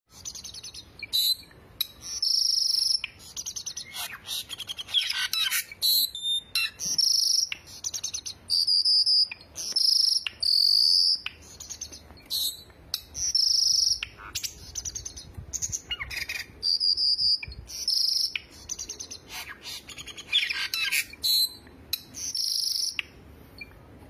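Caged cucak songbirds (cucak jenggot, cucak cungkok and cucak keling) singing: loud, high-pitched whistled phrases and chirps in short runs with brief pauses between them.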